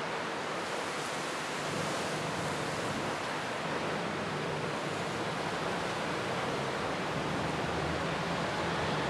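Steady rushing noise of a typhoon storm outdoors, an even rush of wind and weather with no breaks.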